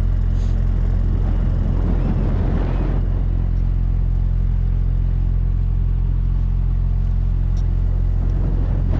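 Boat's engine running steadily, a constant low drone heard on board.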